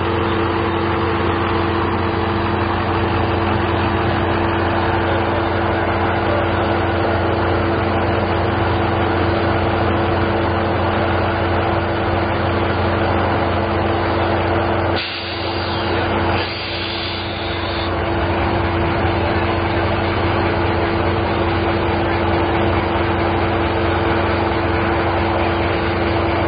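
Steady drone of an idling New Mexico Rail Runner diesel locomotive, a constant hum with a hiss over it, dipping briefly about fifteen seconds in.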